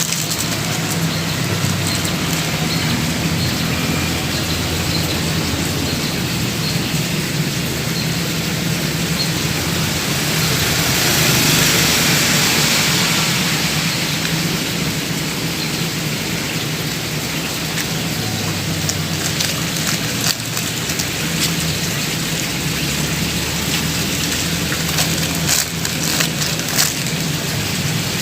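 Steady rushing water noise, swelling briefly around the middle, with a low steady hum underneath and a few sharp clicks in the last third.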